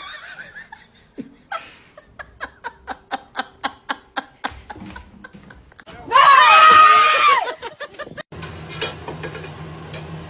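A person laughing in quick, evenly spaced bursts, then a loud vocal cry of about two seconds six seconds in, then a low hum with a few clicks.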